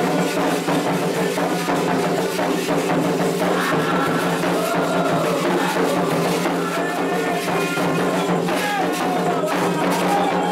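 Candomblé ritual music: atabaque hand drums and other percussion keeping a steady rhythm, with voices singing a chant over them.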